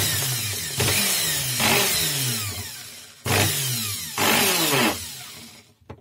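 Brushed motor of a Proton corded screwdriver, opened up, run twice for about three seconds each time, its pitch falling as it winds down after each run. The loose rotor bearing, whose broken plastic seat makes it rattle, is held in place by hand, so the motor runs fairly quietly.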